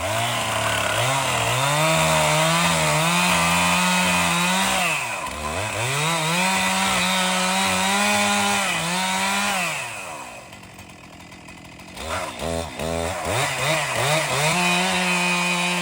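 Toro stump grinder on a mini skid steer grinding a stump: the machine's pitch sags each time the cutting wheel's teeth bite in, then climbs back. About ten seconds in it drops off for a couple of seconds, then spins back up, wavering before it steadies.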